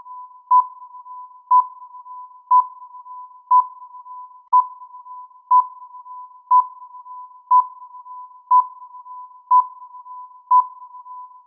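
Electronic countdown-timer beeps at one pitch: a short, louder beep once each second over a fainter steady tone at the same pitch, ticking off the seconds.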